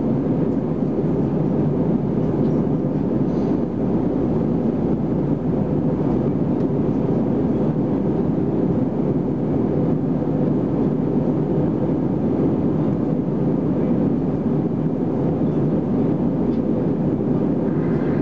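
Steady cabin roar of an Airbus A320-214 in flight, heard from a window seat over the wing: the CFM56 engines and the airflow over the fuselage, with a faint steady hum in it.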